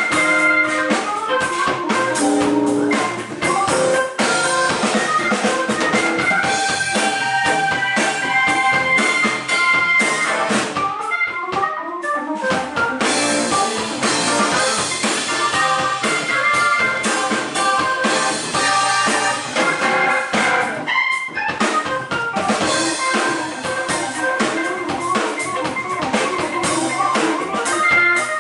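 Hammond B3 organ soloing in a soul jazz combo, backed by drum kit and guitar. The organ line includes two fast sweeping runs, about a third and two thirds of the way through.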